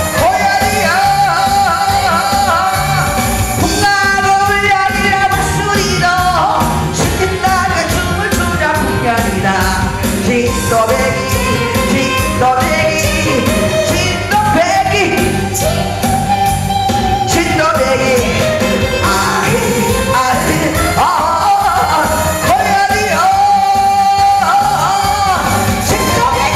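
A woman singing a Korean trot song into a microphone over a backing track with a steady beat, played loud through PA speakers.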